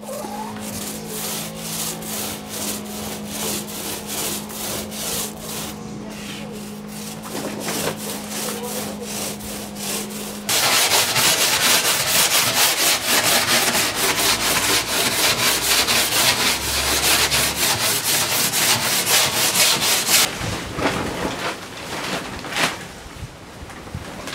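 Hand sanding of the fibreglass-and-epoxy-coated plywood canoe hull: rhythmic back-and-forth strokes, about two a second, over a steady low hum. About ten seconds in it changes to louder, faster sanding strokes on wood, about four a second, which stop about twenty seconds in.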